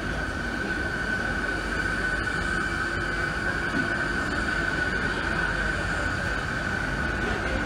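Renfe Media Distancia electric train running past along the platform: a steady low rumble with a constant high whine held at one pitch.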